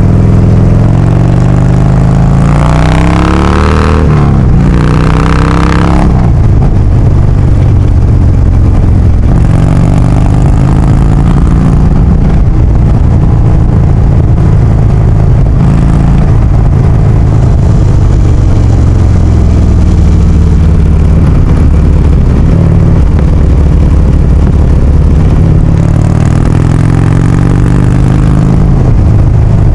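Harley-Davidson FXDL Low Rider's air-cooled V-twin running through a Big Radius 2-into-2 exhaust on the move. It revs up a few seconds in, drops on a gear change at about four seconds and pulls up again, then settles to a steady cruise. It rises once more near the end.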